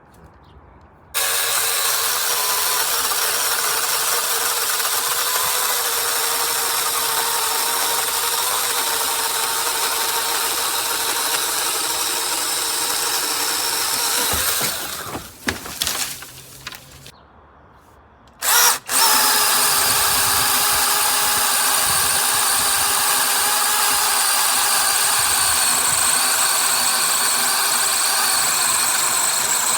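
Cordless electric mini chainsaw's motor running with a steady high whine; it winds down and falls quiet for a few seconds around the middle, then starts up again sharply and runs on.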